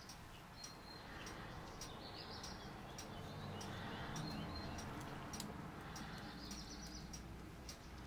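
Faint handling sounds of a paint-covered canvas being tilted in gloved hands, with scattered light ticks, over a low steady background hum and faint high bird chirps.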